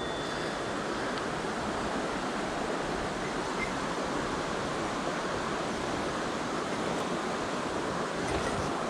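Steady rushing of a mountain stream's water, an even unbroken hiss.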